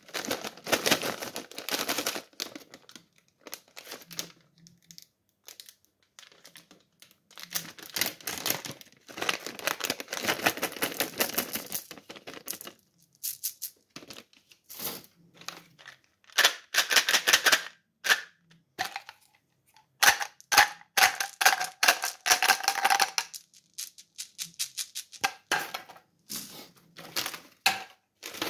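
A plastic Orbit chewing-gum pouch crinkling and being torn open, and small gum pellets clicking as they are poured out into a hand. The sound comes in bursts of rustling, with a run of sharp clicks past the middle.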